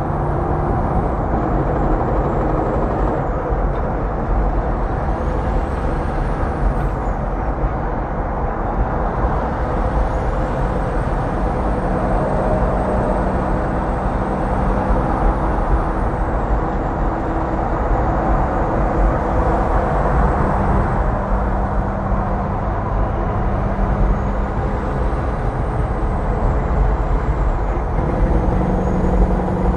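Steady highway driving noise: tyre and wind roar mixed with the low drone of a Kenworth W900 semi truck's diesel running in the next lane. Its engine tones hold, then step to a new pitch a few times.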